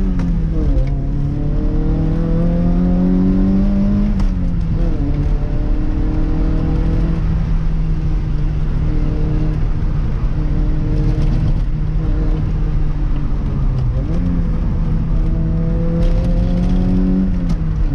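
Toyota MR2 AW11's mid-mounted 4A-GE four-cylinder engine heard from inside the cabin while driving. The engine pulls up in pitch, falls back quickly about four seconds in, runs at a steady pitch for several seconds, then pulls up again and falls back near the end.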